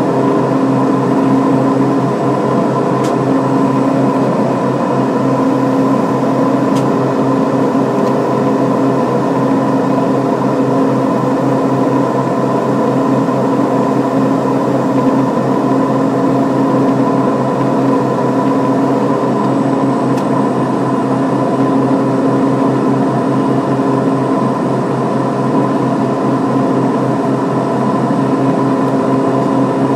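Steady drone of a Beechcraft King Air B200's twin Pratt & Whitney PT6A turboprop engines and propellers, heard inside the cockpit in flight. Several steady tones sit over an even rushing noise, and the lowest tone throbs quickly.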